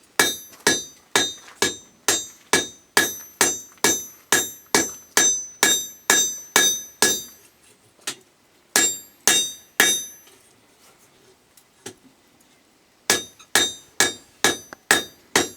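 Blacksmith's hammer striking hot steel on an anvil, forging a spade: evenly paced ringing blows, about two a second. Past the middle the rhythm stops for a few seconds with only a couple of lone blows, then picks up again near the end.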